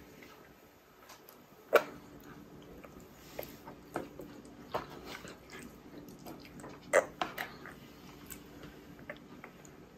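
Soft, irregular wet clicks and smacks of a baby's mouth chewing food, with a faint steady hum underneath.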